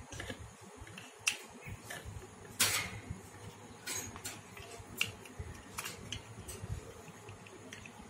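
Scattered light clicks and taps from a green parakeet moving about a wire cage and handling a plastic block toy, with one louder scrape about two and a half seconds in.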